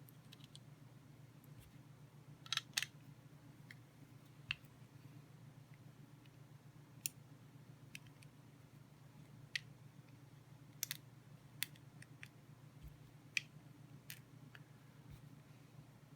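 Scattered small clicks and taps of metal parts of an OTF knife being handled and fitted together, about a dozen, irregularly spaced, over a faint steady low hum.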